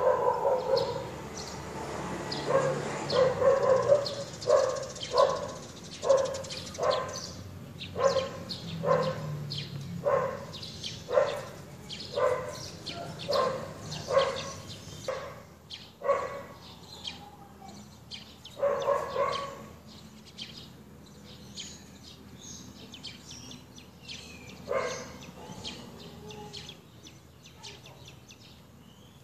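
A dog barking over and over, about one and a half barks a second, then slowing to a few single barks in the second half. Birds chirp faintly in the background.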